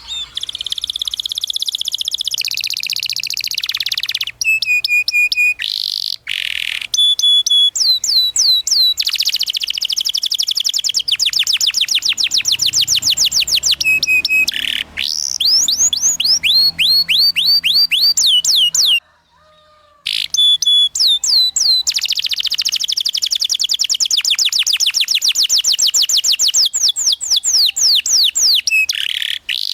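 Domestic canary singing a long, loud song of fast trills and 'cuit cuit' chirps: rapid runs of repeated sweeping notes, broken only by a short pause a little after the middle.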